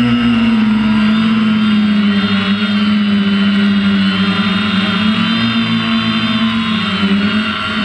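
Quadcopter drone's electric motors and propellers whining steadily at close range, heard through the drone's own camera as it comes down to land on grass; the pitch wavers slightly.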